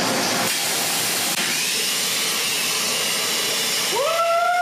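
CNC plasma torch cutting a steel pipe turning on a rotary axis: a loud, steady hiss of the plasma arc and air, with a whistling tone that rises and then holds about four seconds in.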